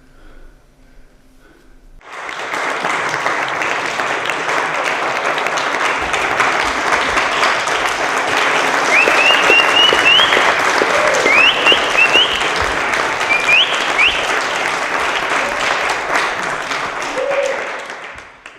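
Crowd applauding, with a few short upward whistles partway through. The applause starts suddenly about two seconds in and fades out near the end.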